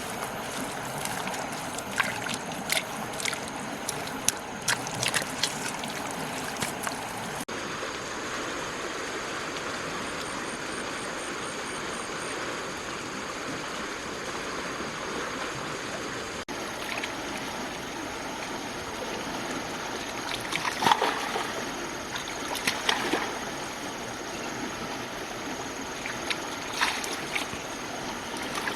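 Steady rush of flowing water with scattered splashes and sloshes, most of them in the first several seconds and again near the end.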